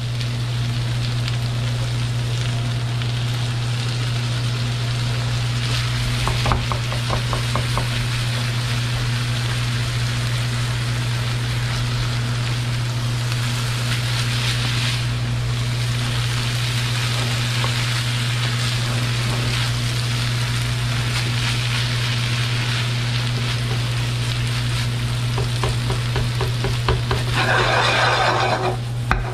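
Chopped chicken thighs sizzling in a frying pan as chicken stock is poured in, then stirred and scraped with a slotted spatula. A louder burst of sizzling and rattling comes near the end as the pan is tossed. A steady low hum runs underneath throughout.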